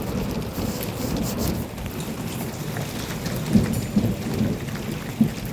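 Thunder rolling and rumbling steadily after a clap just before, with a couple of louder swells, over the hiss of falling rain. The thunder is judged to be about 3 miles away.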